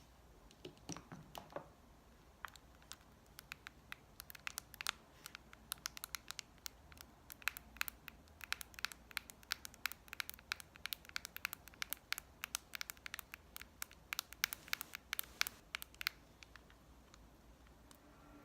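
Makeup items and packaging handled close to a sensitive microphone: a dense run of crisp, irregular taps and scratches, after a soft rustle at the start, tapering off near the end.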